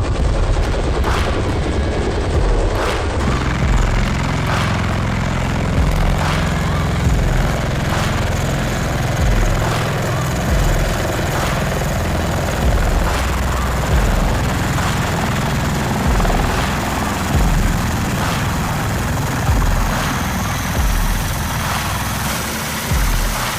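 Steady roar of an aircraft engine, with a sharp thud every second or two.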